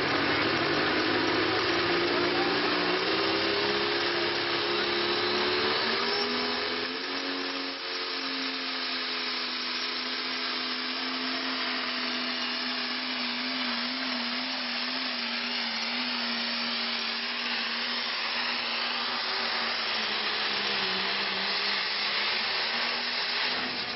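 Turbocharged pulling tractor's diesel engine at full throttle under heavy load, dragging a weight-transfer sled. Its pitch climbs over the first six seconds or so, then holds steady, sagging slightly near the end.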